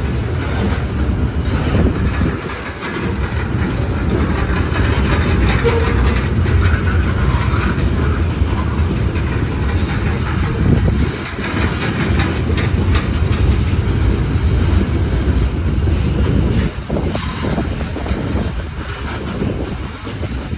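Freight train tank cars rolling past at close range: a steady low rumble of steel wheels on the rails, broken by repeated sharp clicks.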